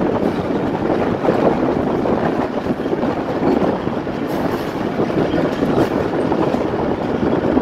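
Passenger train running steadily along the track, heard from an open carriage window: a constant rumble of wheels on rail with a few faint clicks.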